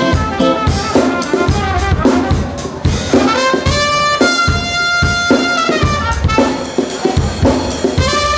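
Upbeat dance music from the reception band over the PA: a melody over a steady beat of about two strokes a second, with a long held note about four seconds in.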